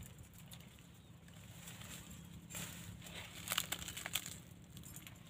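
Shrub leaves and thin branches rustling and crackling as they are pulled and picked by hand, with a couple of sharp snaps about three and a half and four seconds in.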